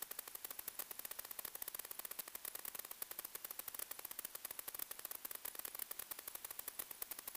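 Radio static from the analog 1.2 GHz FPV video link: a steady hiss with a rapid, even crackle of many ticks a second, and no motor or wind sound.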